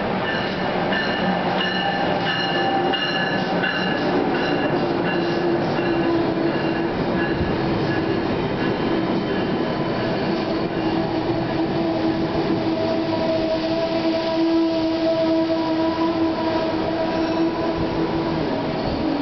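An Amtrak AEM-7 electric locomotive and its stainless-steel passenger cars roll slowly past close by as the train pulls into the station. From a few seconds in, steady squealing tones come from the braking wheels.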